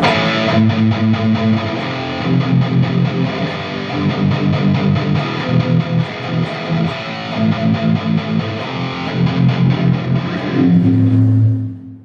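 Les Paul-style solid-body electric guitar played through an amplifier over changing low bass notes, as a sound check. The playing cuts off shortly before the end.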